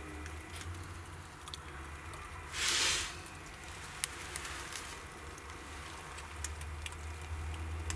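Wood fire crackling in a brick corner fireplace: faint scattered pops and ticks over a low steady hum, with one short rushing hiss about two and a half seconds in.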